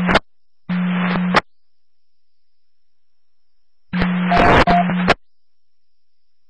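Police dispatch radio channel: two short bursts of radio static with a low hum, about a second in and about four seconds in, each lasting about a second and carrying no words. The second burst holds a brief steady beep. The channel is quiet between the bursts.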